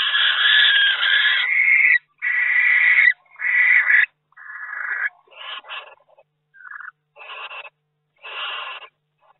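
Barn owl giving a run of harsh, hissing screeches close to the microphone inside the nest box. The first call lasts about two seconds, then about seven shorter calls follow, growing quieter toward the end.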